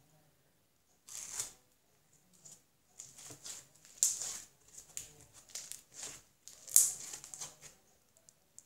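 Slime mixed with polystyrene foam beads being kneaded and squeezed by hand, giving a run of irregular crackles and pops. It starts about a second in and goes on in uneven bursts until just before the end.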